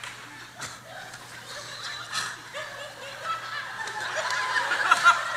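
Audience laughing, dying down at first and building again toward the end.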